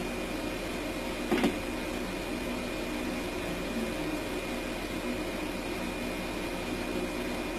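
Steady mechanical hum with a faint high whine, broken once, about a second and a half in, by a short sharp knock.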